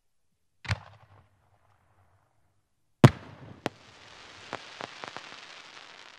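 A 3-inch aerial firework shell: a dull thump as it is launched from the mortar, then about two and a half seconds later a loud bang as it bursts. A second sharp crack follows, then a hissing, crackling trail with scattered pops that fades away.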